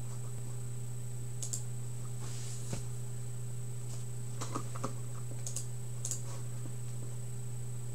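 A few irregular light clicks and taps over a steady low electrical hum and a faint high whine.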